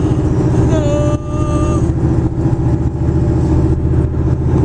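Steady low hum of a running vehicle, with a short held pitched note, sung or from a radio, about a second in.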